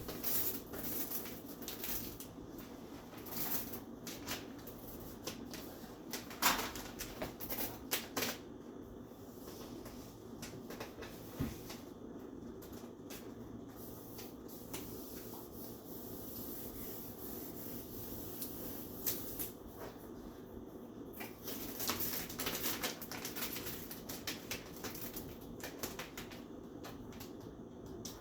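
Vinyl contact paper rustling and crinkling, with scattered small clicks, as it is handled. A steady low hum runs underneath.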